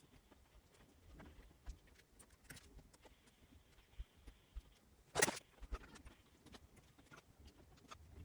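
Scattered small clicks and taps of handling at a workbench, with one louder click about five seconds in.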